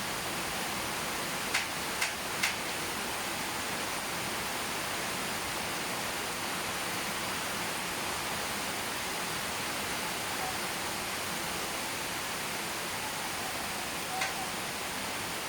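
Steady rain falling, an even hiss, with a few louder single drops ticking through it: three close together about two seconds in and one more near the end.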